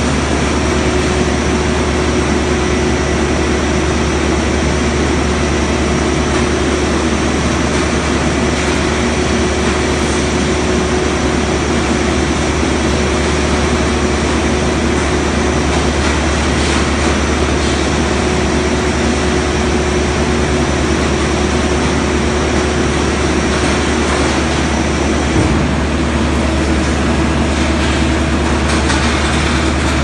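Rotor RR5 car baler's hydraulic power unit running steadily at idle, a constant low hum with a steady whine over it. There is one brief knock about three-quarters of the way through.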